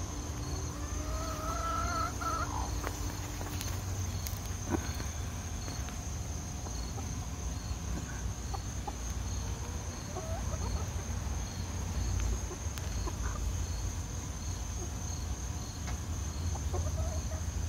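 Chickens in a backyard run: one drawn-out call starts about half a second in and lasts about two seconds, followed later by a few short, faint clucks. A steady high insect buzz with a regular chirp runs underneath.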